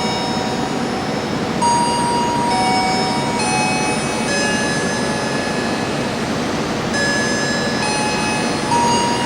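Jayabaya passenger train running through the station with a steady rushing rumble. Over it sits a slow series of held high tones that step to a new pitch every second or so.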